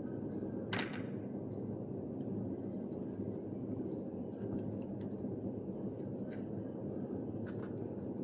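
Raw marinated chicken pieces being handled and set into a glass baking dish: a sharp click about a second in, then a few faint taps, over a steady low background hum.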